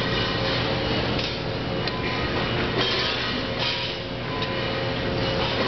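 Machinery of a metal-forming and plasma weld production line running, with a steady hum and a steady mid-pitched tone. Short hissing bursts come a few times, about a second apart.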